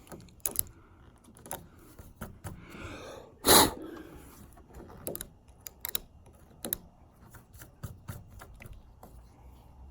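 Scattered light clicks and taps of hands handling things on a canoe hull, with one louder, short noise about three and a half seconds in.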